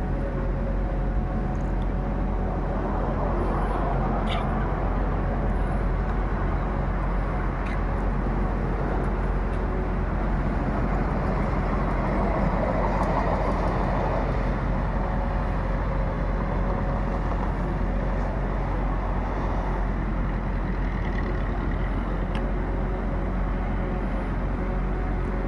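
Car driving on the road: steady engine drone and tyre and road noise, with no change in pace.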